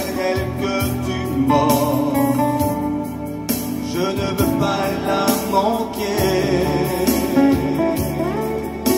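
A man singing a French Christian hymn into a microphone, with vibrato on held notes, over a sustained instrumental accompaniment.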